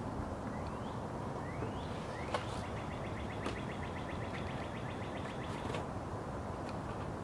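A songbird calling over steady low background noise: a few short rising whistles, then a rapid trill of quick repeated notes lasting about three seconds.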